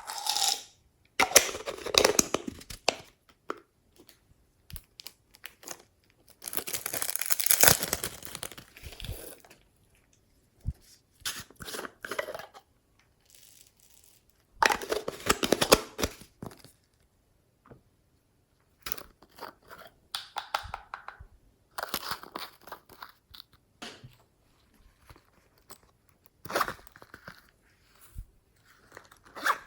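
Hands squishing and stretching slime, giving crackly, squelching pops and crinkles in bursts of one to three seconds with silent gaps between.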